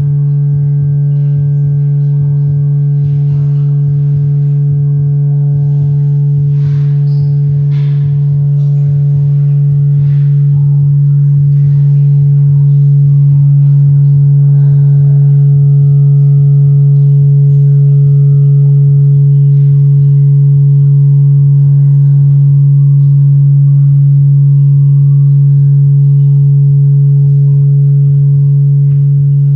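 Loud, steady drone held on one low note with overtones above it, swelling a little about a third of the way in, from the performance's live electronic sound setup. Faint scattered crinkles sit over it, from the mylar sheet being handled.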